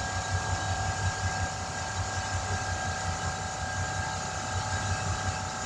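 Portable air compressor running steadily, with a fast, even low pulsing and a steady hum.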